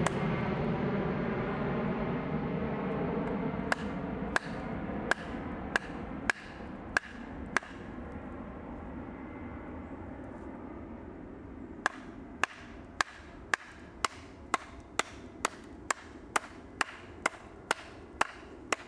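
A wooden baton strikes the spine of the Silver Fox Bushcraft Knife, driving the blade down through a log to split out a spoon blank. Each blow is a sharp, ringing knock: about seven, spaced under a second apart, starting about four seconds in, then a pause, then a quicker run of about a dozen. A distant engine drone fades away over the first few seconds.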